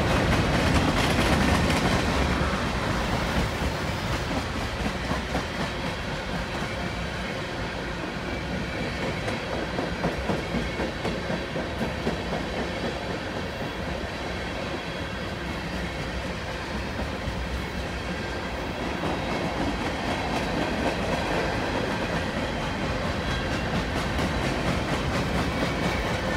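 Freight cars of a long mixed manifest train rolling past: steel wheels on rail making a steady rumble and clatter with rapid clickety-clack, as tank cars and then boxcars go by.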